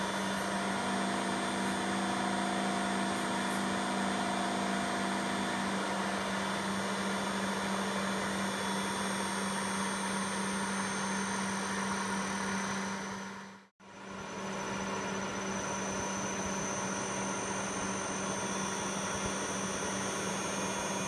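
Tribometer's electric drive motor running with a steady hum and hiss. A few higher tones drop out about six seconds in, and the sound cuts out for a moment about two-thirds of the way through before the hum resumes.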